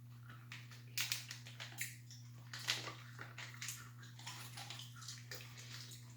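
Irregular crinkling and crackling of a plastic candy package being opened and handled, over a steady low hum.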